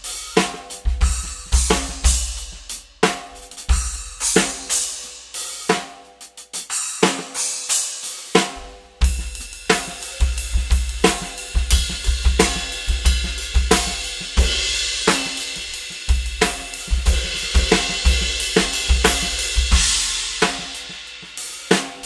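Acoustic drum kit played solo with B20 bronze HQ Cymbals: spaced splash cymbal accents over kick and snare hits, a short lull about eight seconds in, then a busier groove played on the 21-inch HQ Cymbals two Raw Bell ride cymbal, whose ringing wash builds up under the drums.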